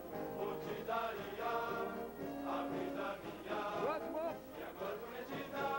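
A choir singing a military song about the infantry.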